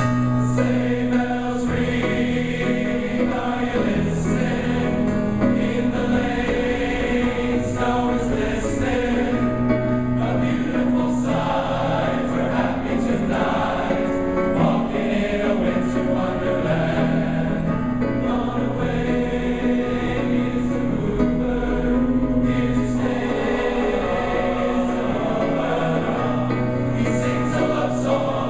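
Large men's chorus singing in harmony, with long held chords.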